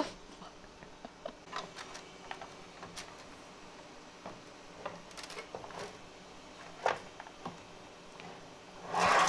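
Scattered light clicks and knocks of a plastic filament spool being handled and fitted on a 3D printer's spool holder. Near the end, a short, louder rush of noise.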